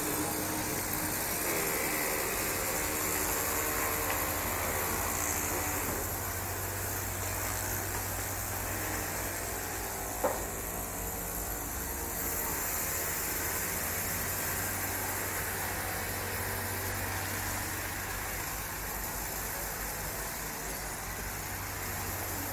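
EP2D electric train making a steady low hum over an even rumble, with a single short click about ten seconds in.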